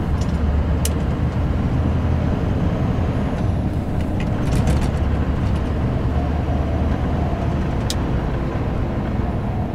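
Scania R560's 15.6-litre V8 diesel engine pulling under load at low revs, around 1,000 to 1,200 rpm, with a steady low drone. A few short clicks sound over it.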